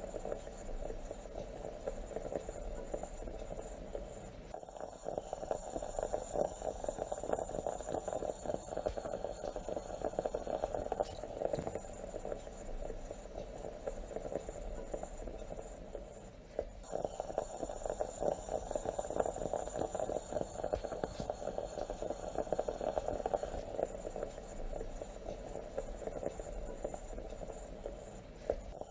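Stovetop moka pot gurgling and sputtering steadily, the dense crackling bubble of coffee being forced up into the top chamber.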